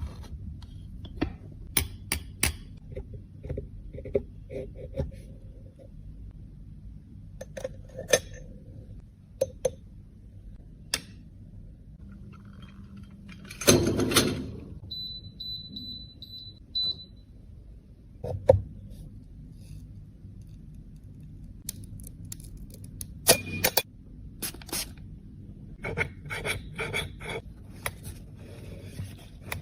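Scattered small clicks, taps and scrapes of cosmetic containers and tools being handled during makeup repair, with one longer, louder scrape about halfway through and a quick run of clicks near the end.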